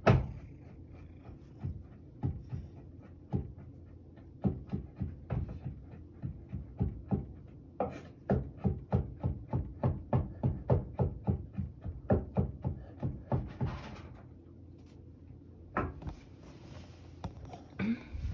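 Kitchen knife chopping carrot on a cutting board: a run of sharp chops, scattered at first, then a steady run of about three a second that stops about three-quarters of the way through.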